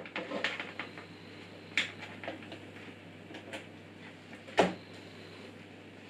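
Hands working at the back of a PC case: a series of light clicks and knocks, the sharpest about four and a half seconds in.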